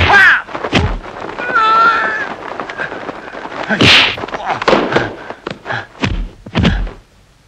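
Dubbed kung fu film fight effects: a quick run of punch and block impacts, with a man's voiced shout about a second and a half in and a loud hit about four seconds in.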